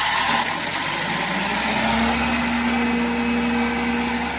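Old farm blower's engine running just after being started, with the big fan rushing air. A steady engine hum firms up about two seconds in.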